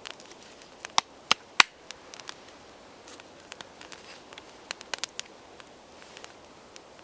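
Freshly lit campfire of small twigs catching and crackling: irregular sharp pops, three loud ones about a second in and a cluster around five seconds in.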